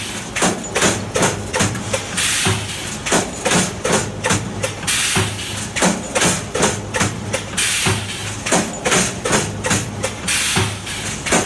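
Automatic multi-head resistance welding machine for wire mesh running: a fast, even clatter of the welding heads striking down, about three knocks a second, over a low hum that comes and goes, with a loud hiss every two to three seconds.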